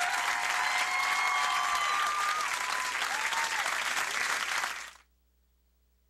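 Studio audience applauding, with a few faint cheering voices over the clapping; the applause cuts off suddenly about five seconds in.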